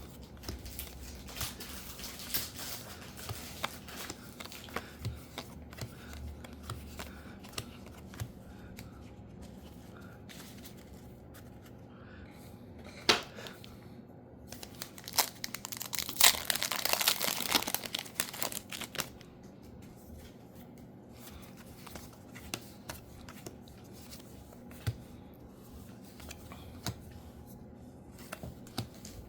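Trading-card booster pack wrappers crinkling and being torn open, with scattered small rustles and clicks. There is a sharp click a little before the middle, then a longer, louder stretch of tearing.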